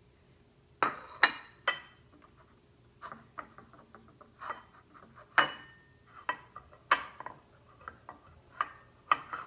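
Ceramic dinner plates knocking and clinking on a countertop as they are handled and moved by hand: three quick knocks about a second in, then scattered knocks, some with a short ring.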